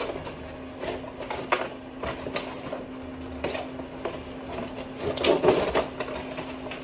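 A small cardboard accessory box being opened and its contents handled: scattered light clicks and taps, with a denser flurry of rustling and rattling about five seconds in. A faint steady hum runs underneath.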